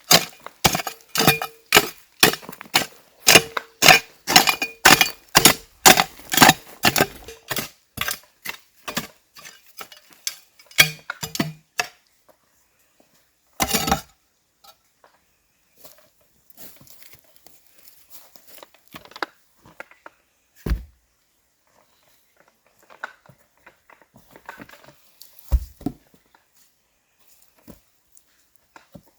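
Wood being chopped with a blade: a fast run of sharp strikes, about three a second, for roughly the first twelve seconds, then scattered single knocks and quieter handling of wood.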